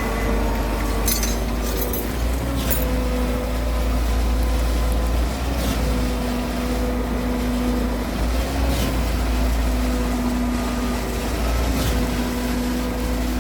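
Heavy truck engine running steadily: a low rumble with a constant hum over it, and a few faint clicks.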